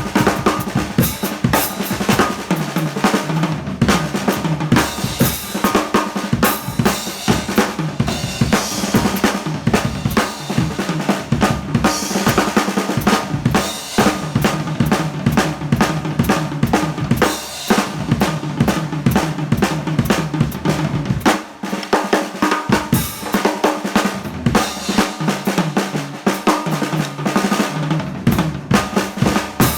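Drum kit played continuously: a busy run of snare and bass-drum hits with cymbals, rimshots and rolls. There is a short let-up about 21 seconds in.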